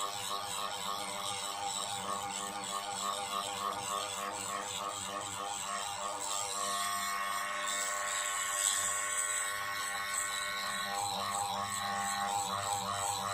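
Small electric micro drill running with its bit grinding down an eMMC chip, over background music.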